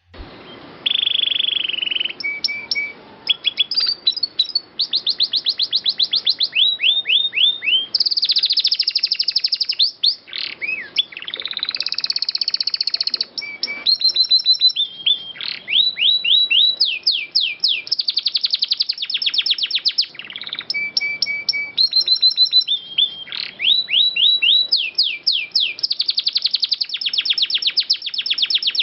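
Domestic canary singing a long, continuous song of rapid trills and rolls, with runs of quick sweeping notes, starting about a second in.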